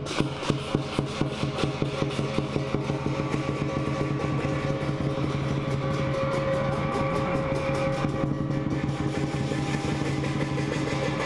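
Lion dance percussion, drum with gong and cymbals, played steadily. It starts at about three or four beats a second, then quickens after a few seconds into a fast continuous roll under ringing metal tones.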